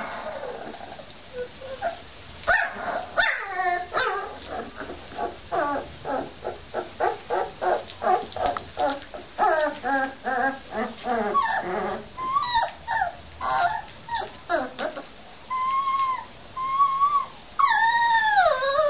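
Young Cane Corso puppies whimpering and squeaking: a run of short high cries, about two or three a second, giving way near the end to a few longer rising-and-falling wails.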